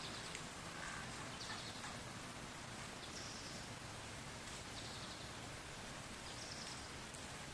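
Steady outdoor background noise with a small bird's short, high chirp repeating about every second and a half.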